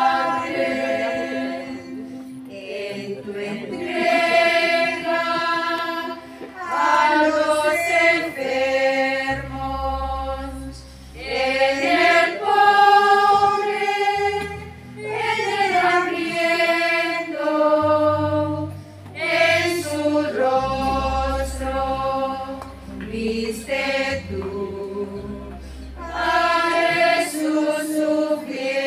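A women's choir singing together in long held phrases, with brief pauses between the lines.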